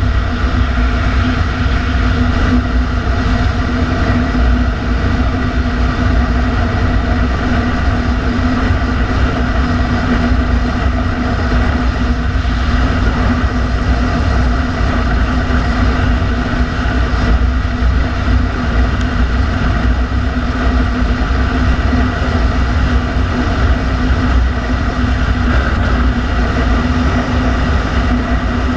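Yamaha Xenter 150cc scooter's single-cylinder four-stroke engine running at a steady cruise with an even drone. Loud rumbling wind buffets the helmet-mounted camera.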